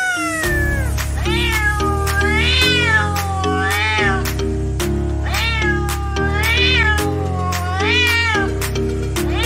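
Grey-and-white domestic cat meowing over and over, long drawn-out meows that each rise and fall in pitch, about one a second, over background music with a steady bass line.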